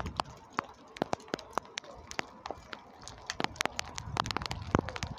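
Storm downpour: drops striking hard surfaces close to the microphone in sharp, irregular taps, several a second, over a low rumble that grows near the end.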